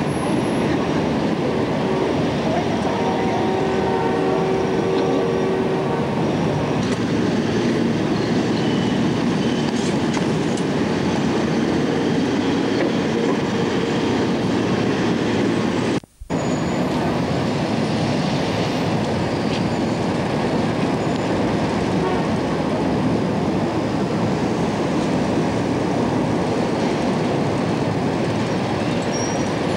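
Steady rumble of moving traffic on a city street, heard through a camcorder's built-in microphone. The sound cuts out for an instant about halfway through, where the recording breaks.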